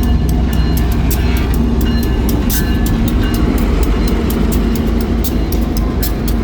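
Diesel freight train running past: a steady low locomotive engine rumble with rapid irregular clicks and clanks from the wheels and cars.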